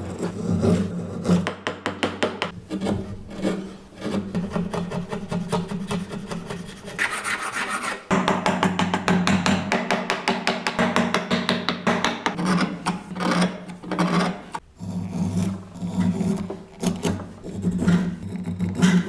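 Wood being filed by hand in quick, repeated back-and-forth strokes.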